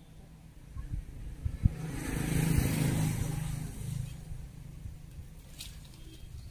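A motor vehicle passing by: its engine and road noise swell up over a couple of seconds, then fade away. A few low thumps come just before it.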